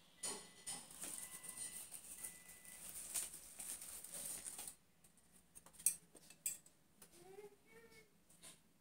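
Faint clicks and taps from artificial flower stems being handled at a vase, over a soft hiss in the first half. About seven seconds in there is a brief chirping squeak.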